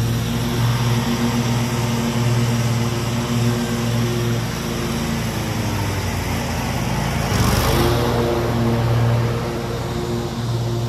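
Small gas engines of landscaping equipment running steadily, a stand-on mower and backpack leaf blowers, over a rushing air noise. A short burst of louder rushing air comes about seven and a half seconds in.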